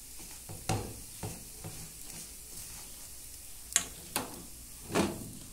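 Spatula stirring toasted panko-and-coconut crumbs in a nonstick frying pan, with a handful of sharp knocks of the spatula against the pan, loudest in the second half, over a faint sizzle of the crumbs frying in butter.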